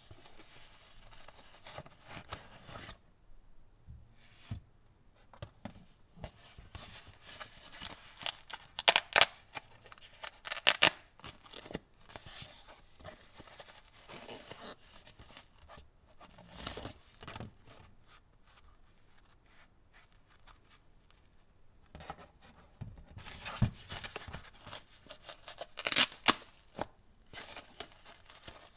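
Gloved hands unfolding and crinkling dark textured paper wrappers around headset accessories: soft rustling and handling, with a few sharp, louder crinkles or tears about a third of the way in and again near the end.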